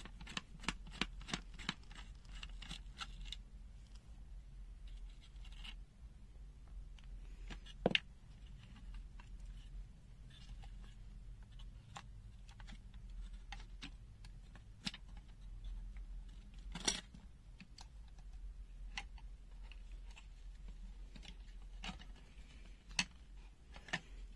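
Small clicks, taps and scrapes of the plastic case and circuit board of an NJTY GY9905T digital multimeter being handled as it is taken apart. A quick run of clicks comes first, with louder single clicks about eight and seventeen seconds in.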